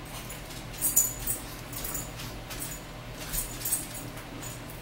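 Close-up chewing and lip-smacking while eating: irregular runs of short, wet, clicky mouth noises, the loudest about a second in, over a steady low hum.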